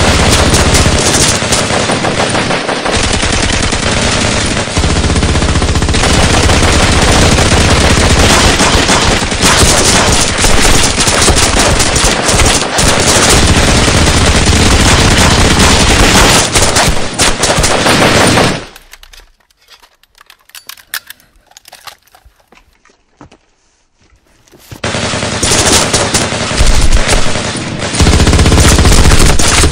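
Sustained automatic gunfire, a dense unbroken stream of shots. It stops about eighteen seconds in and starts again some six seconds later.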